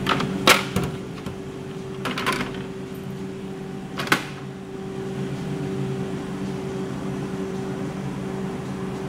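BKN-S82 soft ice cream machine running with a steady hum from its compressors and beater motors while it dispenses soft-serve. A few sharp knocks sound about half a second, two seconds and four seconds in, as the stainless steel tray is handled.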